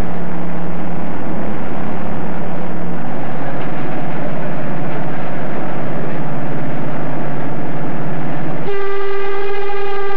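Armstrong-Whitworth diesel-electric rail bus running with a steady engine hum, the note changing about three seconds in. Near the end its horn sounds one long, steady note.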